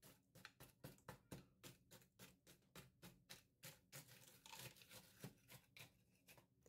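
Wooden spoon stirring frozen blueberries in a stainless steel stockpot: faint, quick clicks and scrapes, about three or four a second.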